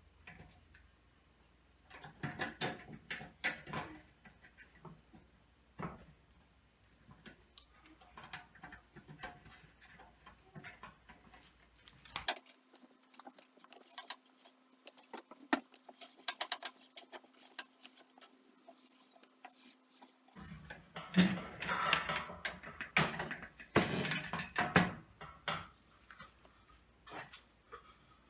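Irregular clicks, taps and light rattles from hand work on a fluorescent light fixture and its small metal parts, with a denser burst of clatter about three-quarters of the way through.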